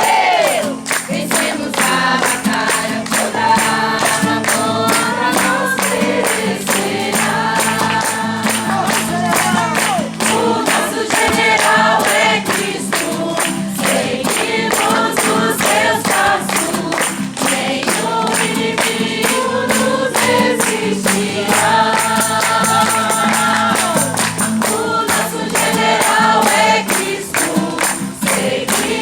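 A group of voices singing a Christian praise song together, with a steady, fast percussive beat throughout.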